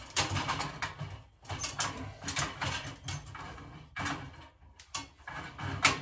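Knipex plier wrench tightening a Robertshaw gas valve onto a threaded steel pipe nipple, giving a string of short, uneven grating strokes of metal on metal as the valve is turned down on the threads.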